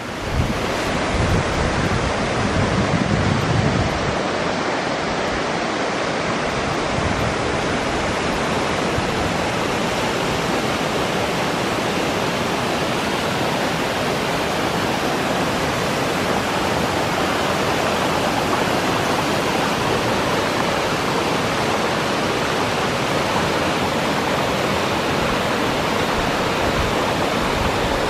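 Toxaway Falls, water sliding down a broad sloping rock face into its plunge pool, making a steady, even rush. There is a low rumble during the first few seconds.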